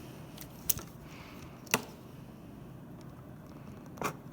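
A few sharp clicks and crackles of a thin plastic pop bottle being cut with a box cutter: three separate snaps, spaced out over a faint steady background.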